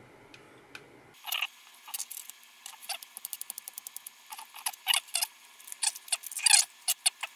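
Small hand cutters nibbling and whittling away at the edge of a laminated plastic credit-card-style security token: a run of short, irregular snips and crackles, some in quick runs of several a second, beginning about a second in.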